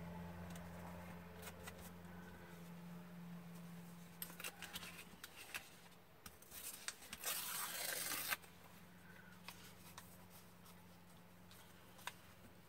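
Thin scrapbooking paper crackling as it is handled, then torn by hand in one ripping pull of about a second, about two-thirds of the way in.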